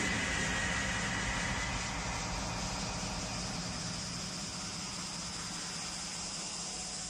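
Steady rushing, rumbling noise from an anime battle's sound effects, slowly fading, with no music or speech.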